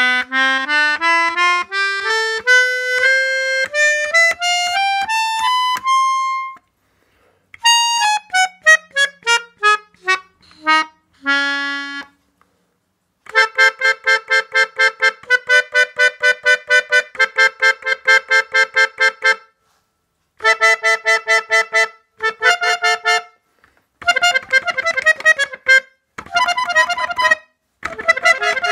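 A 1970s Suzuki Melodion, a keyboard melodica whose reeds are blown through a mouthpiece tube, being played. It starts with a rising run of notes over about two octaves, then a falling run and a held low note. After that come phrases of quickly repeated chords, about three or four a second, with short pauses between them.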